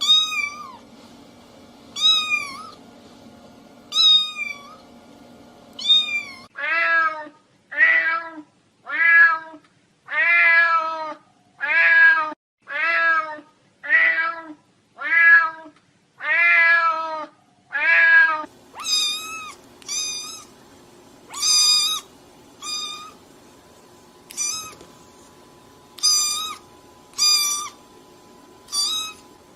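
Domestic cats meowing over and over. First comes a short high-pitched meow about every two seconds. From about six seconds in, a lower-voiced cat meows about once a second. From about eighteen seconds in, high-pitched meows return at an uneven pace.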